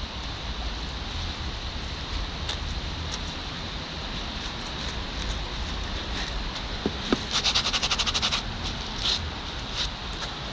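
Gloved hands handling a heavy rusty metal find on a concrete ledge: a few light knocks, then a rapid rattling scrape lasting about a second, three quarters of the way through, over steady outdoor background noise.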